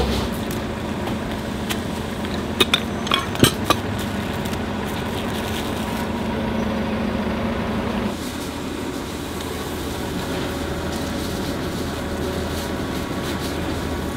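Steady mechanical hum of background noise, with a quick cluster of sharp, ringing clinks about three seconds in. The hum drops a little about eight seconds in.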